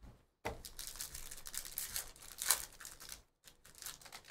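A trading card pack's wrapper crinkling and tearing as it is opened, with cards being handled. The noise runs for about three seconds, with a few short rustles near the end.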